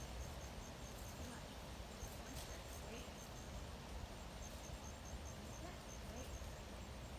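Insect chirping faintly in quick, evenly spaced high pips of about five a second, in runs with short breaks, over a low steady rumble.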